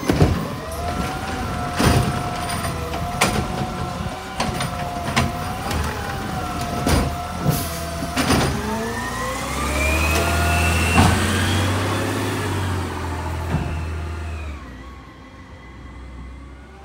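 McNeilus automated side-loader garbage truck at the curb, its hydraulics whining steadily while carts and the lift arm clank and bang about eight times. About nine seconds in, the engine revs with a rising whine as the truck pulls away, fading near the end.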